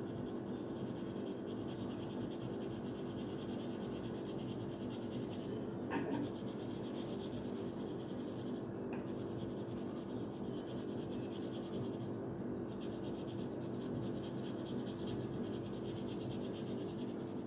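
Red coloured pencil shading on paper in quick back-and-forth strokes, a steady scratchy scribbling as a ring is coloured in, over a steady low hum. A small knock about six seconds in.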